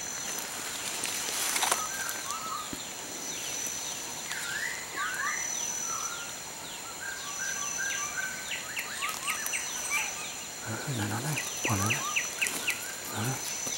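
Jungle ambience: a steady high insect drone that pulses on and off, with small birds calling in quick falling chirps and a few wavy whistles. A little after ten seconds in come a few short, low calls.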